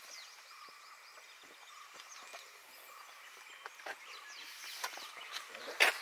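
Outdoor ambience with faint bird chirps over a steady high drone, broken by a few sharp clicks in the second half, the loudest just before the end.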